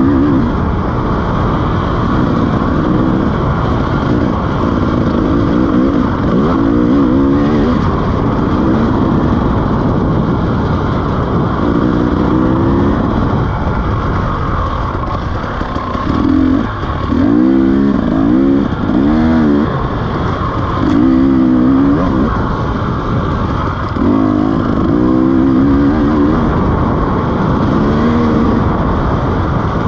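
KTM 300 two-stroke enduro dirt bike engine running hard under way. It revs up and drops back again and again as the throttle is opened and closed.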